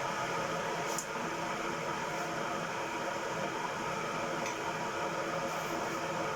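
A steady whirring hiss with a held hum running through it, like a running machine, with a faint click about a second in.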